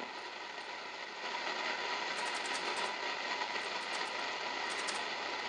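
R-390A tube communications receiver's loudspeaker putting out steady static hiss with faint steady whistle tones and scattered crackles: tuned to an empty stretch of the low-frequency band, with no station to be heard.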